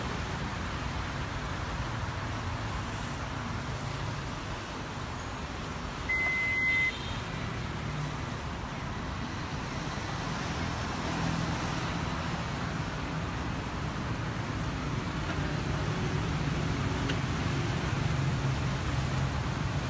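Steady low vehicle rumble, with one short high electronic beep about six seconds in.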